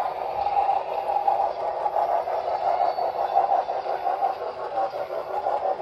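HO-scale model passenger cars rolling past on the track, a steady whir of the wheels running on the rails.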